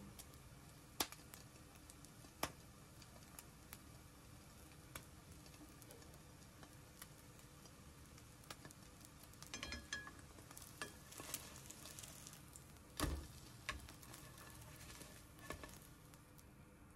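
French toast frying in a nonstick frying pan: a faint, steady sizzle with scattered pops and crackles. Later on come a few louder knocks and scrapes as a spatula works under the slice.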